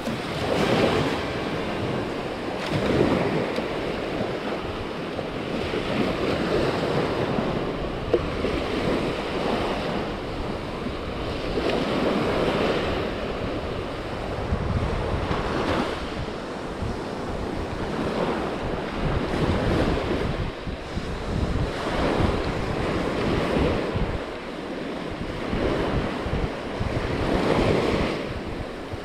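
Small surf waves breaking and washing up a sandy beach, swelling and easing every few seconds, with wind buffeting the microphone.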